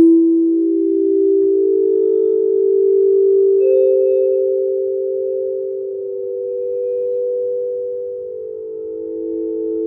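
Ambient soundtrack music of held, pure-sounding tones that overlap and slowly change pitch. A new higher tone enters about three and a half seconds in, and a lower tone comes back near the end.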